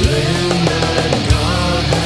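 Heavy metal song with electric guitars and drums, a sharp drum hit at the start and another about a second and a half later.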